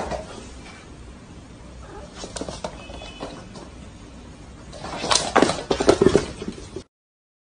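A cat gives a short high call about three seconds in, followed by a couple of seconds of loud scuffling and rubbing close to the microphone as the phone is jostled. The sound cuts off abruptly near the end.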